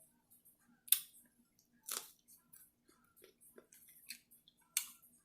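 Close-miked eating sounds: chewing with irregular wet mouth clicks and smacks, a few louder ones about a second, two seconds and near five seconds in, while eating shrimp stir fry in coconut curry.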